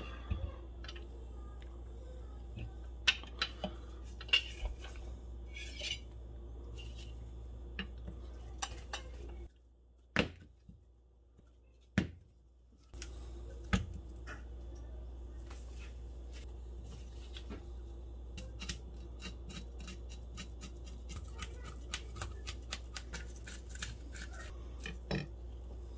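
Kitchen knives handled over a plastic cutting board: scattered knocks and clicks as a knife is drawn from a wooden block and set down. In the second half a knife scrapes the scales off a dark-banded rockfish (볼락) in a fast run of rasping clicks. A steady low hum lies under it, dropping away briefly near the middle.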